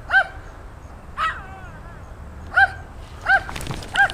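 Small dogs yapping: about five short, high-pitched barks spaced irregularly, each one rising and falling in pitch.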